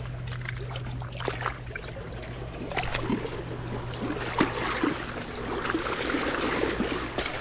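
Shallow water splashing and lapping as a pike is handled in it, with small irregular splashes and knocks, busier from about three seconds in, over a steady low hum.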